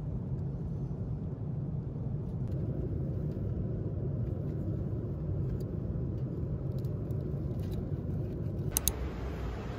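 Airliner cabin noise: a steady low rumble of engines and airflow, with a few faint clicks from handling the meal tray. Near the end a sharp double click, after which the background changes to a brighter steady hiss.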